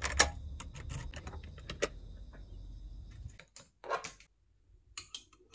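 Keys jangling and a key turning in a front door's lock, then a series of sharp clicks and knocks from door latches and a lever door handle being worked.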